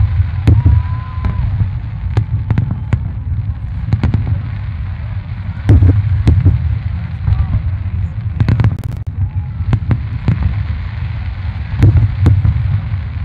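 Aerial fireworks shells bursting one after another: deep booms and sharp cracks over a continuous low rumble, with the heaviest bursts near the start, about halfway through, and near the end.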